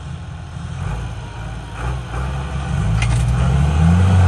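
Farm tractor's diesel engine revving under heavy load. It gets louder and rises in pitch over the last couple of seconds as it strains to pull a sugarcane trailer bogged in soft mud.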